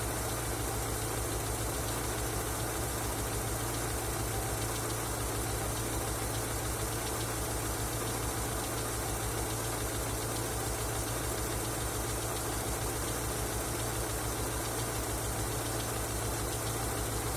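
Car engine idling steadily with a knock, which the owner says began after an oil change.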